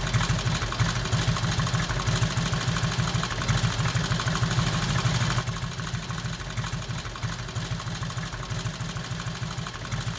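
Motorcycle engine idling with a fast, even pulse. It turns a little quieter about five and a half seconds in.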